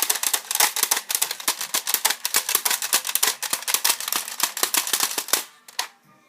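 Rapid, dense plastic clicking and clacking of a Buzz Bee Air Warriors Cougar toy dart blaster's mechanism being worked quickly over and over, stopping suddenly about five and a half seconds in.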